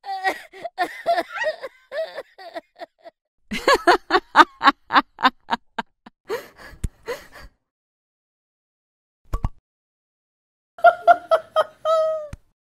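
A squeaky cartoon character voice babbling and laughing in quick rhythmic syllables, a single short click about nine seconds in, then a brief falling whine near the end.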